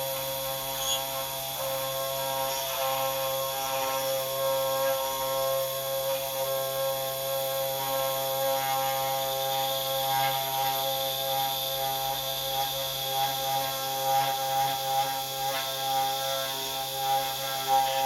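CNC 3018 desktop router running: a steady whine of several held tones with irregular squeaks and clicks, the squeaks getting louder and more frequent in the second half. The squeaking comes with the machine's x-axis shifting out of position.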